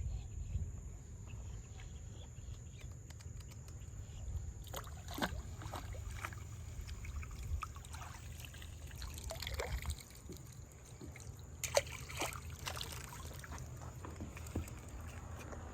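Water sloshing and trickling at the edge, under a steady low wind rumble on the microphone. A few brief knocks and rustles come about five seconds in, around ten seconds in, and near twelve seconds.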